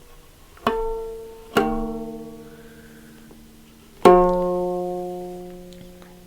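Three single notes on an instrument from Ethiopia, each ringing out and fading over a second or two; the third, about four seconds in, is the loudest and rings longest.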